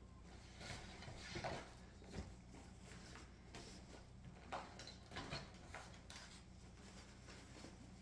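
Faint scattered light knocks and rustles of a person moving about and handling things close by, over a steady low hum.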